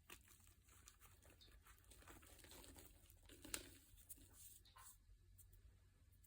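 Faint crinkling and small irregular clicks, like something being handled close by, with one sharper click about three and a half seconds in.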